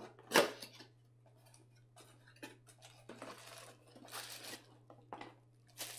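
Cardboard box of a mug being opened by hand: a sharp click about half a second in, then faint rustles of the flaps and paper insert with a few light clicks.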